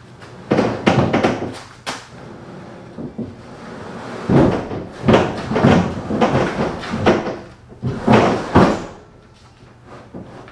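Metal bed slide frame being pushed into a pickup truck bed: several bunches of clunks and scraping knocks, the loudest about halfway through and again near the end.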